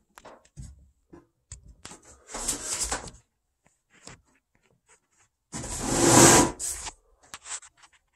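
Handling noise on the recording device's microphone: scattered small clicks and two longer rubbing scrapes, the second and louder one about five and a half seconds in.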